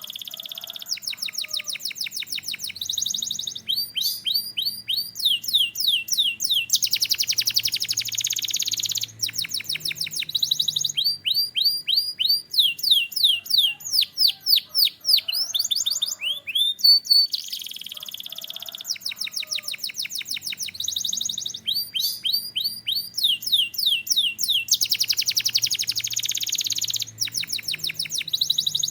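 Canary singing a long, high-pitched song in rapid phrases: runs of quick down-sweeping whistled notes alternating with fast buzzy trills, the sequence coming round again about halfway through.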